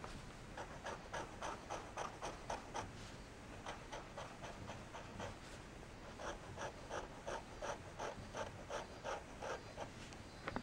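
Fine nib of a Montegrappa Fortuna Mosaico Marrakech fountain pen scratching across paper in quick back-and-forth strokes, about five a second, in three short runs. There is a single click near the end.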